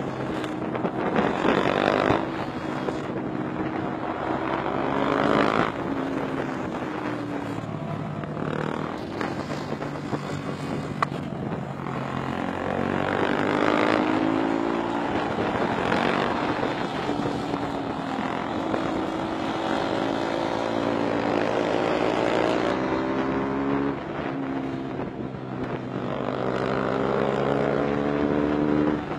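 Motorcycle engine heard from on board while riding, its pitch climbing again and again as it accelerates and dropping back as it eases off or changes gear.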